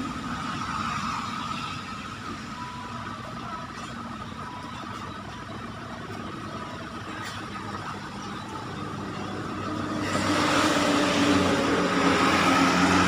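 Steady background noise with a low mechanical hum, swelling louder about ten seconds in.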